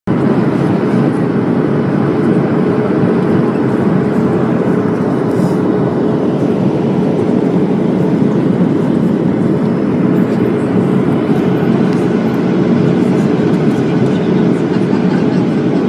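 Airliner engine and airflow noise: a steady, loud, low rumble with no change in pitch or level.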